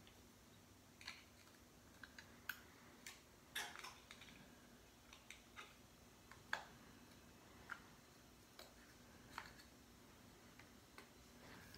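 Small hand tool prying and snipping at a Kindle's circuit board and plastic frame: about fifteen short, sharp clicks and small snaps at irregular intervals, over faint room hum.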